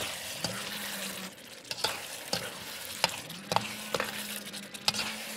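Slotted metal spatula stirring and scraping tomato and onion sauce in a stainless steel wok, with the sauce sizzling and several sharp clinks of the spatula against the pan.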